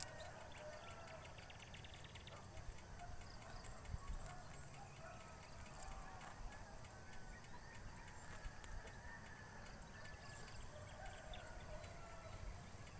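Faint rural background with scattered distant bird calls. A jacket is unzipped, its zipper giving a quick run of fine ticks about a second in, and the jacket rustles as it is pulled off.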